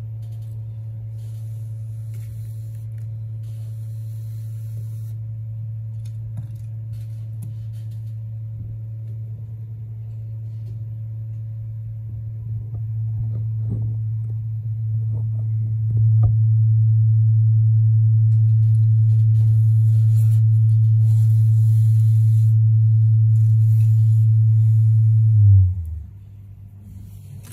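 A steady low hum that gets louder about two-thirds of the way in, then slides down in pitch and stops near the end, with a few small clicks in the middle.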